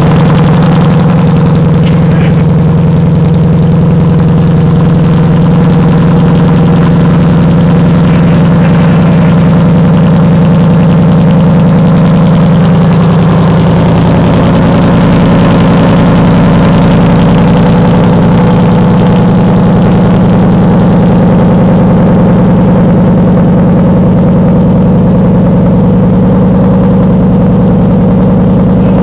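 A 2017 Mustang GT's 5.0 Coyote V8 idling steadily just after a cold start, through a Ford Performance cat-back exhaust, essentially a Borla S-Type with no resonator in the x-pipe. The exhaust is so loud that it is more than the microphone can handle.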